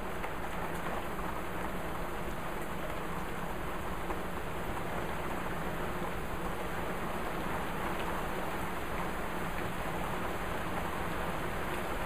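Steady rain falling, heard from under a covered porch.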